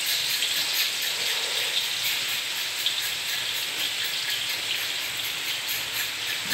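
Food frying in hot oil in a wok on a gas stove: a steady, dense crackling sizzle with an occasional sharp tick.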